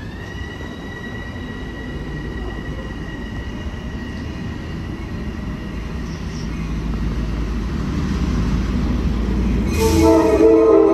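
Pair of LIRR MP15AC diesel locomotives approaching with a low rumble that grows louder. The lead unit sounds its multi-note horn loudly about ten seconds in. Before that, a departing LIRR electric train's motor whine settles to a steady note and fades away.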